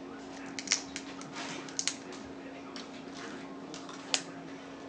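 Snow crab leg shells cracking and snapping as they are broken open and bitten: a handful of sharp cracks, two in quick succession about two seconds in and the loudest near the end, over a steady low hum.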